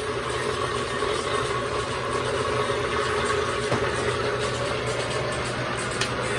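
Vitamix blender motor running steadily, churning a thick emulsified vinaigrette.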